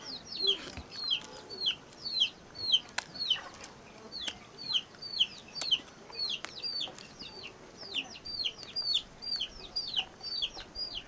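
A bird chirping over and over: short, high, falling peeps, about two to three a second, without a break.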